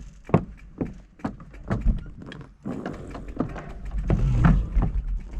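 Footsteps knocking on the loose wooden planks of a boardwalk, about two steps a second, with a low rumble swelling near the end.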